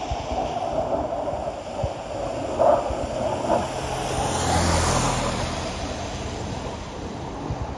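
Fighter jets flying over: a rushing jet roar that builds to its loudest about halfway through, then eases off.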